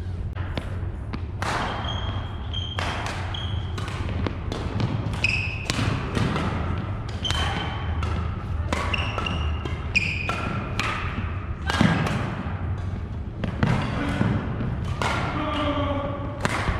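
Badminton rally play: rackets smacking a shuttlecock and feet landing on a hardwood court, many sharp irregular hits, with short high-pitched sneaker squeaks on the floor and a steady low hum in the hall.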